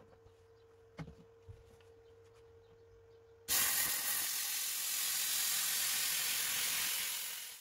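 Plasma cutter cutting thin 0.5 mm sheet steel: a loud, even hiss of the arc and its air jet starts suddenly about three and a half seconds in and fades away near the end. Before it there is only a faint steady hum and a single click.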